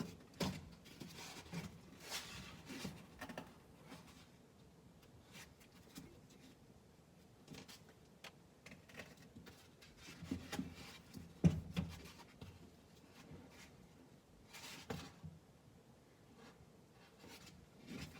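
Hands working at a car door's fittings: scattered rubbing, scraping and small clicks, with a few sharper knocks about ten to twelve seconds in and again near fifteen seconds.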